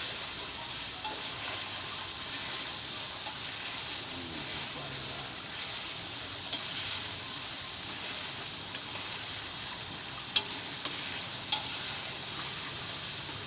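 Spice paste sizzling as it is sautéed and stirred in hot oil in a pan, a steady frying hiss. Two sharp clicks of the spatula against the pan come near the end.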